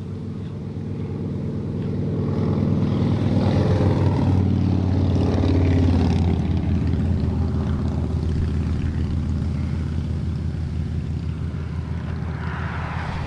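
Engine drone of a passing motor vehicle: a steady low hum that grows louder to a peak about five seconds in, then slowly fades.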